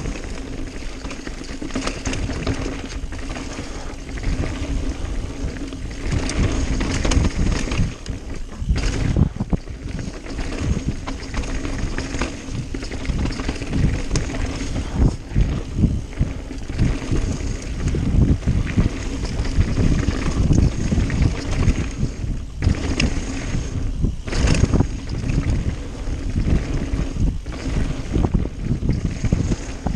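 Mountain bike ridden fast down a rough dirt trail: wind rushing over the microphone, tyres rolling over dirt and loose rock, and the bike rattling with frequent small knocks.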